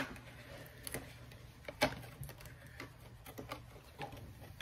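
Scattered light clicks and taps of a cosmetic spray bottle and its packaging being handled, the sharpest a little under two seconds in, over a faint low hum.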